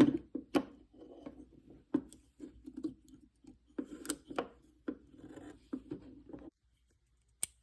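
Husky folding lock-back utility knife being handled: scattered sharp clicks of plastic and metal parts with light rubbing in between, as the blade-release button is pushed back. Quiet for a moment near the end, then one more sharp click.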